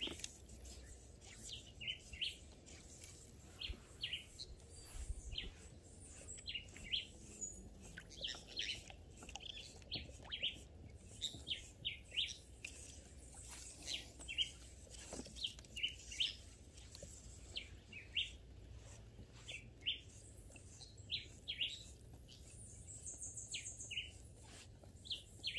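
Small birds chirping: many short, high chirps repeat throughout, and a higher, longer call comes in near the end.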